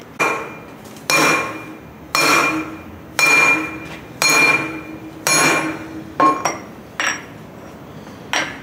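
Hammer blows on metal, about one a second, nine in all, each ringing on briefly; the last three are shorter.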